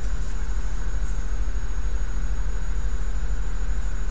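Steady low hum with a few faint steady tones over it, like a machine running. It holds level throughout, with no knocks or changes.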